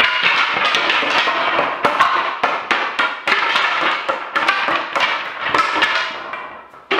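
Oak wine barrel staves clattering onto a concrete floor as the unhooped barrel falls apart, with hammer blows knocking the last staves loose: a dense, loud run of wooden knocks and clacks that stops near the end.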